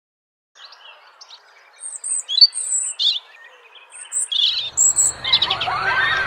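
Birds chirping and calling in short, high notes, building after a few seconds into a denser chorus of rising and falling calls.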